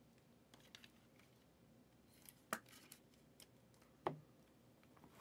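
Sports cards and their plastic holders being handled: sparse faint clicks, with two sharper taps about two and a half and four seconds in.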